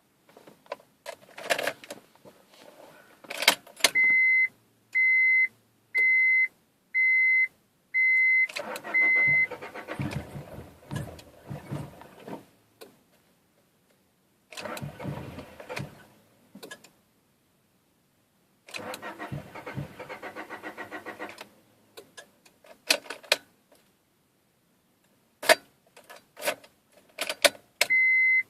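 1997 Honda Prelude's starter cranking the engine in three tries of a few seconds each, and the engine never catches: a no-start. Before the first try a warning chime beeps about once a second, and key and switch clicks come between the tries.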